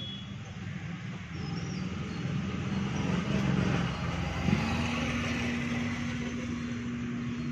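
A motor vehicle's engine running nearby, growing louder and settling into a steady hum about halfway through.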